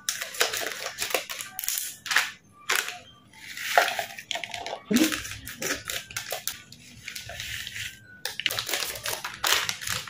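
Foil spice sachets crinkling and crackling as they are handled and snipped open with kitchen scissors: a run of short, sharp crackles and snips, with a longer rustle a little under four seconds in.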